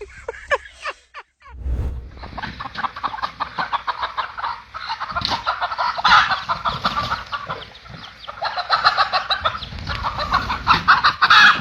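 A flock of chickens clucking and cackling together in a dense, continuous chatter that starts about a second and a half in.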